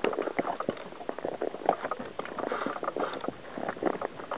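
A horse walking on a stony trail: irregular clops and knocks of its hooves, several a second.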